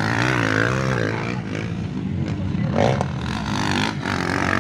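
Several motocross dirt bikes running and revving on the track, their engine pitch rising and falling as the riders work the throttle over the jumps.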